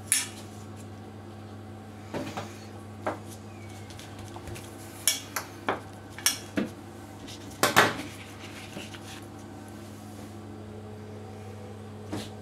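Metal fork clinking and tapping against a stainless steel counter while crimping shut the edges of puff-pastry pockets: about a dozen sharp, irregularly spaced clicks, with a steady low hum underneath.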